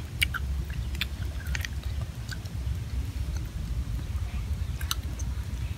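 Chewing and crunching on grilled crabs, with a few sharp cracks of shell over a steady low rumble.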